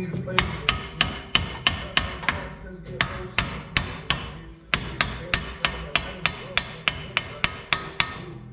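Steady hammer blows on the front brake and hub assembly of a 2003 Dodge Ram 3500, about three a second, with a brief pause near the middle.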